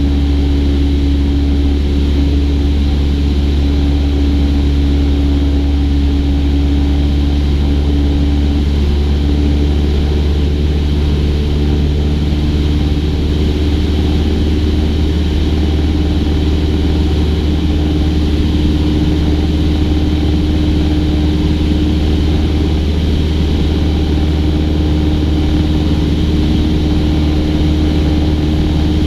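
Cessna 172's piston engine and propeller running steadily in cruise, a constant loud drone whose pitch creeps up slightly a couple of times.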